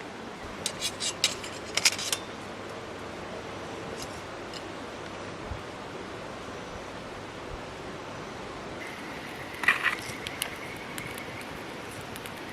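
Metal camp cookware and utensils clinking and rattling as they are handled, in two short clusters: one about a second in, and one near the end. A faint steady high tone and a background hiss run underneath.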